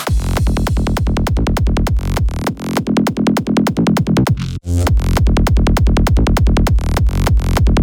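Electronic dance music in a DJ mix: a fast, driving kick-drum beat with heavy bass, breaking off for a split second about four and a half seconds in.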